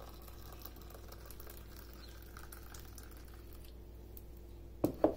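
Coffee poured in a faint, steady trickle from an MSR Windburner coffee-press pot into a mug. Near the end come two sharp knocks, a fraction of a second apart, as the pot is set down on the bench.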